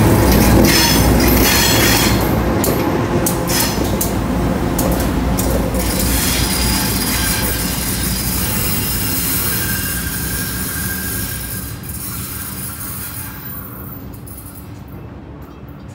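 Providence and Worcester freight train's cars rolling past, steel wheels clattering and clanking with some squeal, the sound fading steadily as the end of the train moves away.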